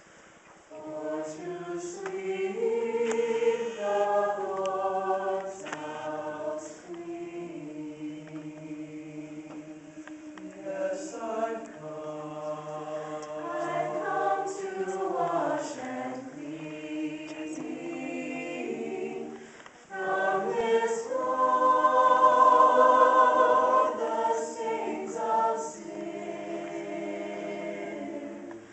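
Mixed choir of men's and women's voices singing an old Shaker song a cappella in several parts, with long held chords. The sound drops briefly about twenty seconds in, then swells into its loudest passage.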